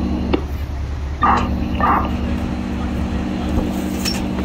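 Idling fire truck diesel engines: a steady low rumble with a steady hum over it. The hum drops out with a click near the start and comes back about a second in. Two short sounds come about a second and two seconds in.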